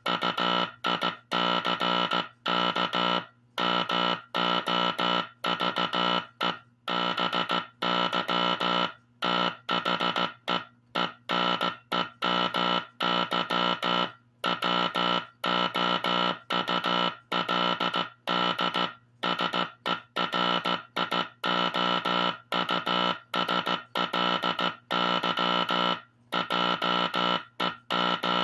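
Vintage Teleplex code practice oscillator sending Morse code through its speaker: a buzzy tone keyed on and off in an uneven pattern of longer and shorter tones, with a click at each break.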